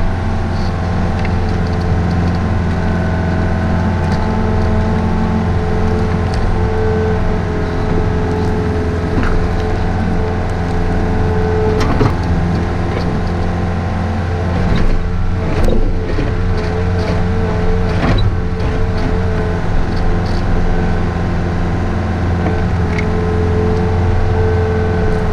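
Excavator's diesel engine running steadily under load, with hydraulic whine that wavers in pitch for a few seconds past the middle. Several sharp knocks and clanks come about halfway through.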